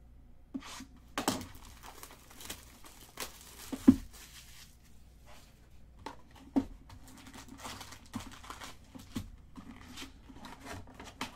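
Wrapping being torn and crinkled and cardboard handled as a Panini Contenders Draft Picks baseball card box and its packs are opened by hand. A few sharp knocks stand out, the loudest about four seconds in.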